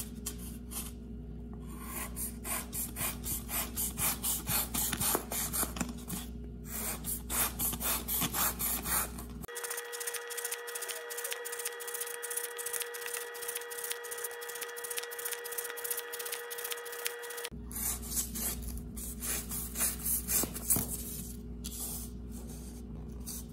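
Folding pocket knife blade slicing through corrugated cardboard in a long run of short rasping cuts, about three or four a second. In the middle the cuts continue over a few steady tones for several seconds.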